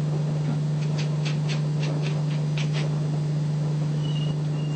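A small kitchen knife cutting into an orange's peel to take off its top. It gives a run of about seven short, crisp cutting sounds between about one and three seconds in, over a steady low hum.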